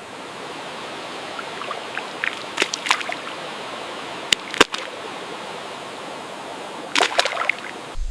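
Steady flowing water like a stream, with short sharp sounds on top: a cluster about two and a half seconds in, two sharp clicks a little past four seconds, and another cluster about seven seconds in.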